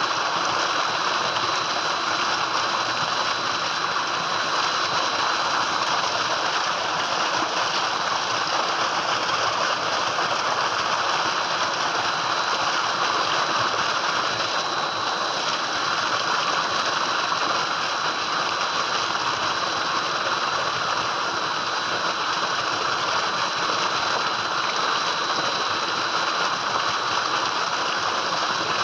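Tubewell pipe discharging a heavy stream of water into a concrete tank: a steady gushing splash, with a thin steady high whine under it.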